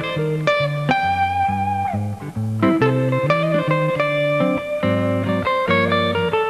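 Instrumental guitar music over a bass line: plucked notes, with one note held and bent downward about two seconds in.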